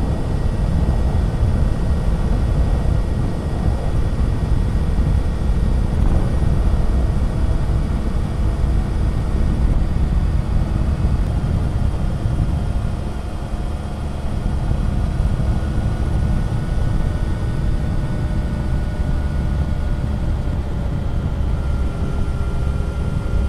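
Triumph Tiger 1050's three-cylinder engine running at a steady cruise, heard from the moving motorcycle under a heavy rush of wind and road noise. The sound eases briefly about halfway through.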